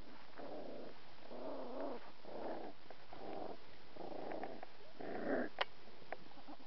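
Cardigan Welsh Corgi puppies growling while they wrestle in play: a run of about six short, rough growls, with one sharp click near the end.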